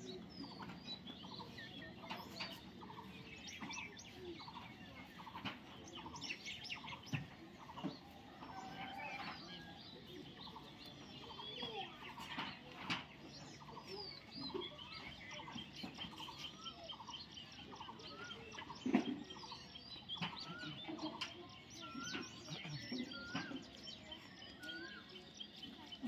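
Outdoor bird chorus: many birds chirping and calling, with a run of evenly repeated calls in the first half and a fast, even series of high notes through much of the second half. About three-quarters of the way through there is one short, louder low thump.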